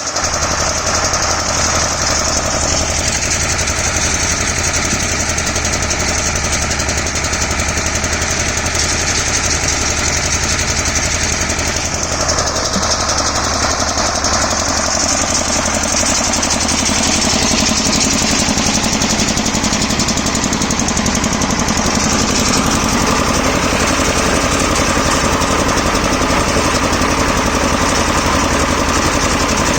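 A harvesting machine's engine running steadily, with a continuous low drone and a mechanical clatter over it. The sound of the machine shifts about halfway through and grows slightly louder afterwards.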